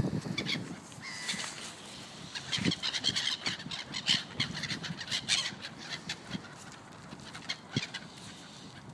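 Flock of Canada geese honking: many short calls overlapping, busiest in the middle.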